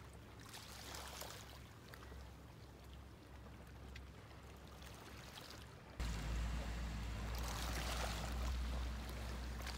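Gentle sea water lapping at a rocky, pebbly shore, faint at first. About six seconds in it cuts to a louder take with a low rumble underneath and soft swells of wash.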